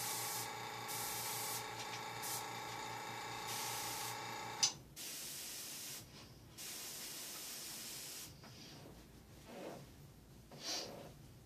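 An airbrush spraying paint in short hissing bursts over the steady hum of its air compressor. About four and a half seconds in the compressor shuts off with a click, and the airbrush keeps hissing, fainter and more broken toward the end.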